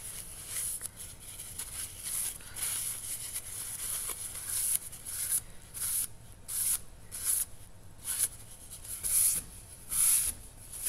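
A wadded paper towel rubbing baking-soda paste off a steel knife blade, a dry scratchy hiss. The wiping runs fairly continuously at first, then breaks into separate strokes about twice a second.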